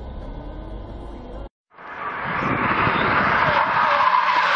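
Low rumble of a car driving, cut off suddenly; then, after a short break, a loud hiss of tyres skidding with an engine revving as a sedan slides sideways in a drift.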